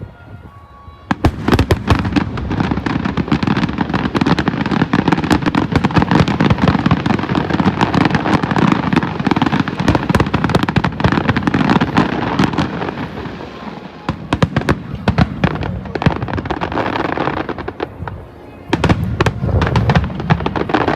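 Fireworks display in full barrage: a dense, rapid stream of cracks and booms that starts about a second in, with short lulls around two-thirds and near the end before it picks up again.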